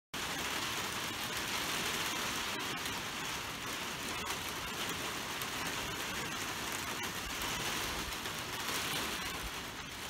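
Typhoon rain pouring steadily as an even hiss, with a few faint ticks of drops.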